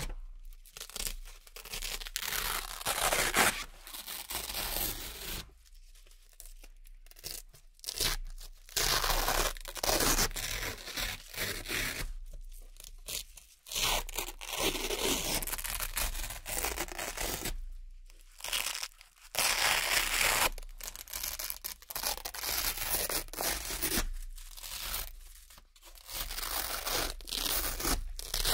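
Round Velcro hook-and-loop patches being peeled off a fabric board, one after another: a run of crisp ripping tears with a few short pauses between.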